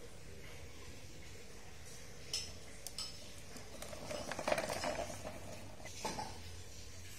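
Hard plastic knocks and clatter from a plastic toy dump truck being handled on a tiled floor: a few single clicks, with a denser rattling burst about four seconds in.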